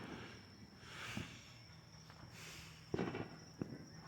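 Faint, distant fireworks going off: a couple of soft hissing swells followed by two sharp pops about half a second apart.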